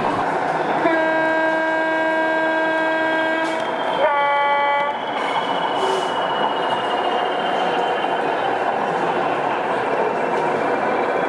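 Sound-fitted O gauge model Class 58 diesel locomotive sounding its two-tone horn: a long low note, then a short higher note. This is followed by steady running noise with a faint high whine as the locomotive moves.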